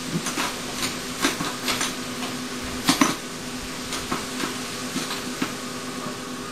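Irregular metallic clanks and knocks from the lower door of a Vigas wood-gasification boiler, the loudest about halfway through, over a steady hum from the running boiler.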